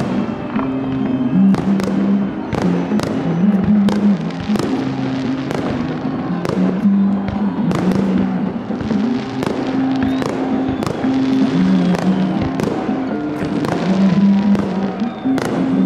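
Fireworks salute, with aerial shells bursting in a steady run of sharp bangs, about one or two a second, over music with long held notes.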